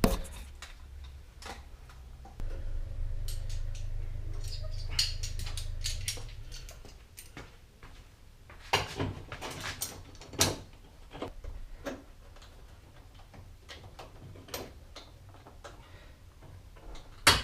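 Scattered metal clicks and knocks of hand tools, vice grips being clamped on and worked against a rusty, seized nut. A low steady rumble runs for a few seconds near the start.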